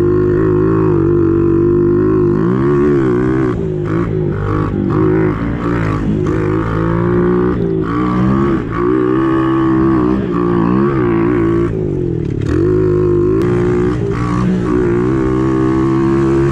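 Pit bike engine running under load as it is ridden around a dirt track, its pitch rising and dropping again and again with the throttle and gear changes.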